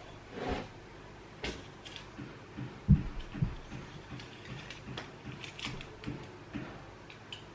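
Kitchen handling sounds: a few dull thumps, loudest about three seconds in, among light clicks and taps of bowls and utensils being moved about.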